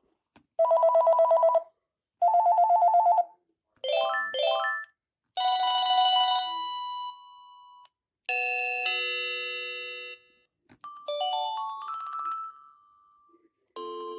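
Panasonic KX-TGD532 cordless phone playing its ringtones one after another: two short warbling electronic rings, then from about four seconds in a series of short electronic chime tunes.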